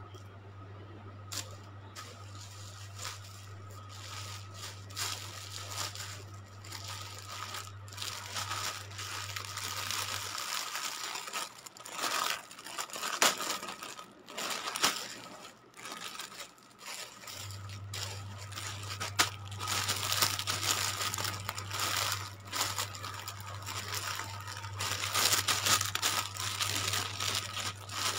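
Rustling and crinkling of clothes and their packaging being handled and searched through: irregular crackles and clicks that grow busier in the second half. A steady low hum runs underneath and drops out for several seconds in the middle.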